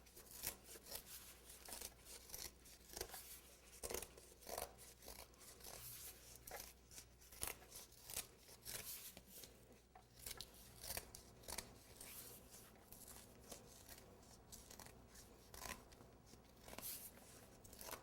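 Scissors cutting through a cardboard cake board: a long run of faint, irregular snips and crunches.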